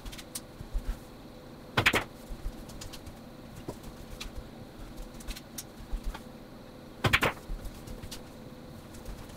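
Pool balls clacking in two short bursts, about two seconds in and about seven seconds in. The second burst is a stop shot: the cue ball strikes the object ball and stops in its place.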